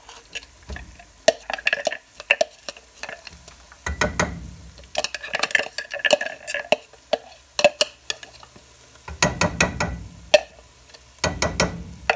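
Ground walnuts being scraped and knocked out of a plastic food-chopper bowl into a wok: many quick scraping clicks, with a few clusters of heavier knocks. Under them is a light sizzle of walnuts frying in oil.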